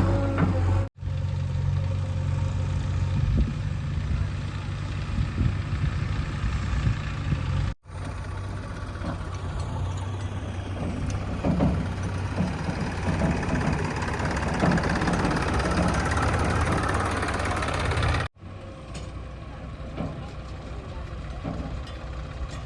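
Heavy diesel engines of a backhoe loader and trucks running steadily, broken by three abrupt cuts between segments.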